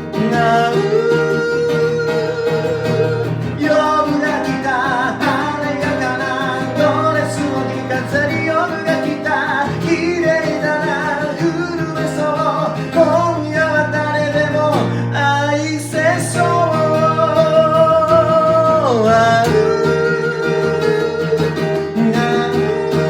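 Music: an acoustic guitar played under a singing voice that holds long, wavering notes, with a falling slide about 19 seconds in.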